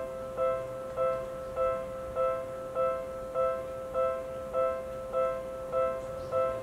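Japanese railway level-crossing warning bell ringing in a steady repeated two-tone clang, about 1.7 strikes a second, signalling that a train is coming and the barriers are down.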